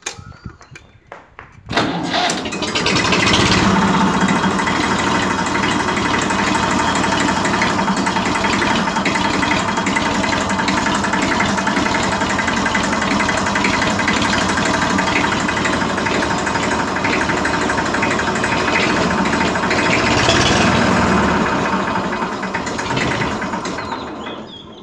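IMT 533 tractor's three-cylinder diesel engine being started, catching about two seconds in. It then runs loud and steady, swells slightly near twenty seconds, and fades away near the end.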